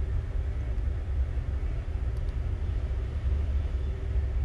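Steady low background rumble with a constant hum, and a faint click about two seconds in.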